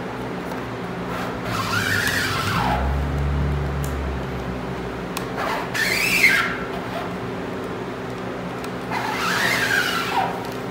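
Three strokes of a rubber squeegee dragged through white ink across a 120-mesh screen-printing screen. Each is a rasping drag of about a second and a half with a squeak that rises and then falls in pitch.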